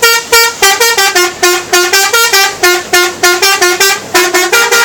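Telolet musical air horn on a bus playing a quick tune: a rapid run of about two dozen short toots stepping up and down in pitch.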